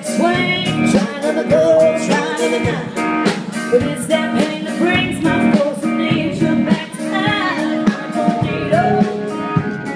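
Live country band playing through a PA: a singer over electric guitars and a drum kit keeping a steady beat.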